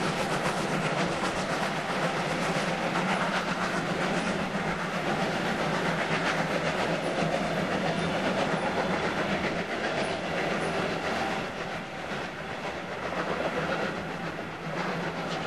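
A steam train hauled by a Swedish Railways S1 class tank engine passing close by: the coaches' wheels clatter over the rail joints, with the locomotive's steam and exhaust behind. The sound eases somewhat after about ten seconds as the train draws away.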